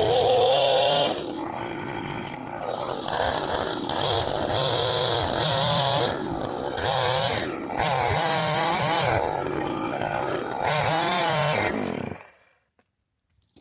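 Husqvarna two-stroke chainsaw running at high RPM, its pitch rising and falling repeatedly as it is revved, then shut off about twelve seconds in. It is finally reaching full RPM as the old, stale gas burns out of it.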